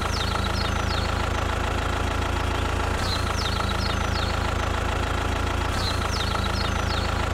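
An engine idling steadily, with groups of short high chirps. The same few seconds repeat about every three seconds, like a looped recording.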